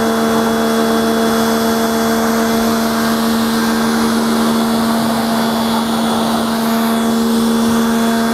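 Motoyama electric high-pressure washer (650 W, rated up to 135 bar) running steadily, its pump motor giving a constant hum under the hiss of the water jet spraying against a scooter.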